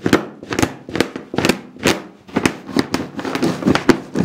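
Roasted terebinth (menengiç) seeds being crushed under a wooden rolling pin on a wooden board, a noisy crunching stroke about twice a second as the pin is rolled back and forth. The oily seeds are being ground down toward a paste.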